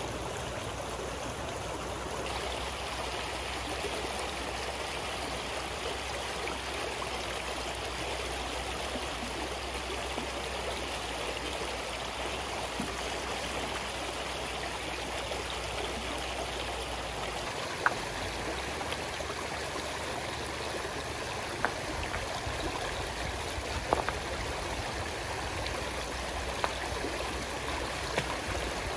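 Shallow, rocky stream running steadily over stones. From a little past halfway there are a few separate sharp knocks.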